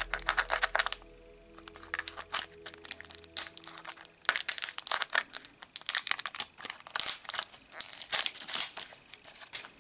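Plastic shrink-wrap being torn and peeled off a small toy capsule: a long run of crinkling and crackling, with a short pause about a second in.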